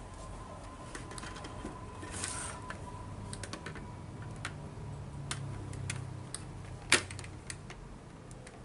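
Hard plastic clicks and ticks of a visor being fitted onto an HJC CL-Y full-face helmet's side pivot mounts, with a short rustle about two seconds in and one louder snap-like click about seven seconds in.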